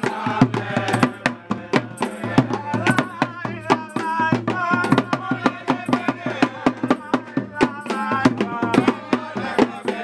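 Hand drums played in a fast, steady rhythm, with a voice singing over them through the middle.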